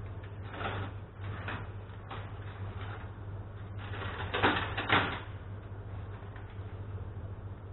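Handling noises from working a small plastic bottle and wire at a workbench: scattered short scrapes and clicks, with two louder rustling noises about four and five seconds in, over a steady low hum.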